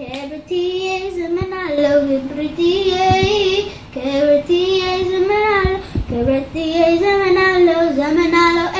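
A young girl singing alone, holding long notes with a slight vibrato.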